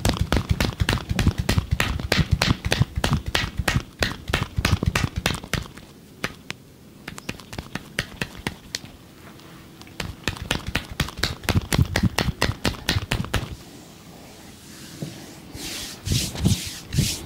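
Massage hands slapping a body in quick percussive strokes, about six to seven a second, in runs broken by two short pauses. Near the end a rubbing hiss joins the slaps.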